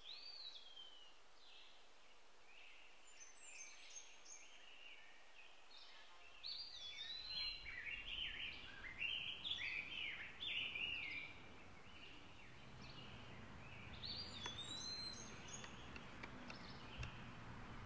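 Several birds calling and chirping, with one whistled call that rises then falls recurring a few times. A busier burst of chirping comes from about six seconds in to about eleven seconds.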